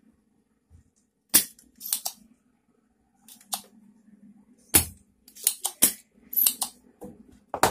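A series of about nine sharp, irregular clicks and snaps as tools and a CRT TV's circuit board are handled, over a faint steady low hum.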